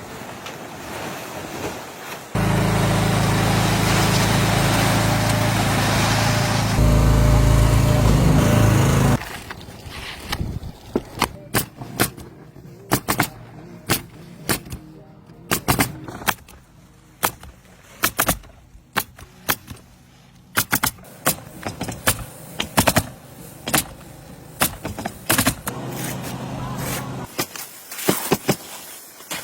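A steady machine hum for several seconds that stops suddenly, then sharp nailing strikes at irregular intervals, about one a second, from roofing work.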